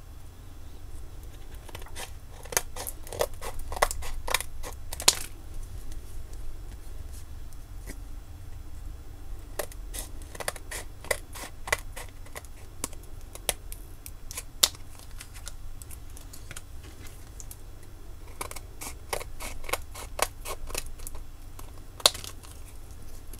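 Scissors cutting a clear plastic Sinclair ZX Spectrum keyboard membrane into pieces: quick runs of sharp snips in three bursts, with a low steady hum underneath.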